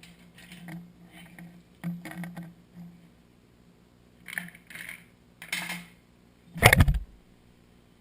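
Mini bike roller chain rattling and clinking as it is worked off the sprockets, in short bursts of metallic scraping, then a loud metal clatter with a thud a little before the end.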